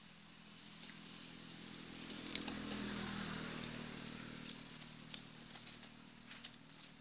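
A passing engine, growing louder to a peak about three seconds in and then fading away, with a few light clicks near the start and end.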